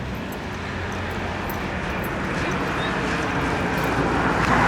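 Tecnam P2010 TDI light aircraft's turbo-diesel engine and propeller humming steadily, getting louder as the plane approaches.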